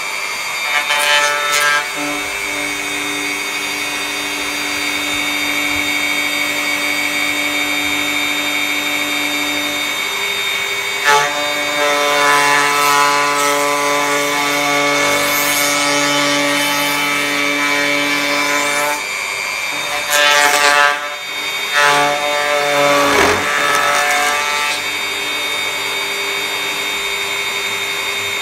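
A corded electric power tool planing a wooden board to thickness, its motor whining steadily. The pitch and load shift several times as it cuts, with louder spells about a third of the way in and again near three-quarters.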